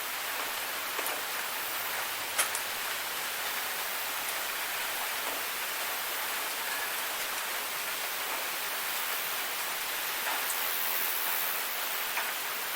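Waterfall: falling water making a steady, even rushing hiss, with a few brief sharp ticks of splashing drops, the clearest about two and a half seconds in.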